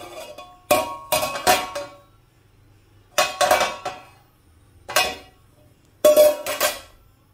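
Flat aluminium pot lid clanking against an aluminium cooking pot as it is lifted off and set down, in about five bursts of ringing metal clanks.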